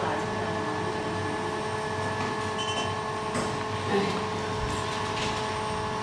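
SEC-E9 computer-controlled key cutting machine running, a steady hum of several fixed tones, with a few faint clicks and knocks about midway.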